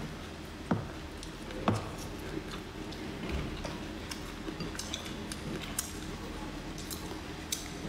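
Close-up eating with wooden chopsticks from a rice bowl: chopsticks knock sharply against the bowl twice about a second apart near the start, then soft chewing and small mouth and chopstick clicks, over a low steady hum.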